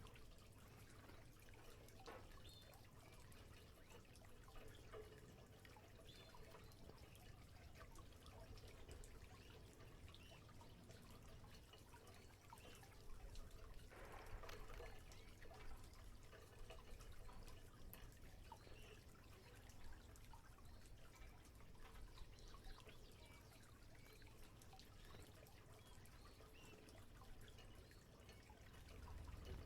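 Faint trickling and dripping water: a canary splashing in its bath water.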